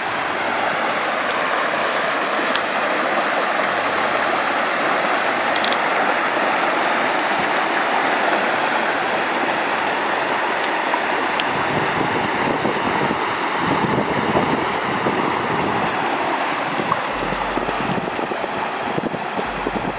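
Stream water rushing over a small rocky cascade: a steady, loud rush of white water. About halfway through, a deeper, uneven rumble joins it.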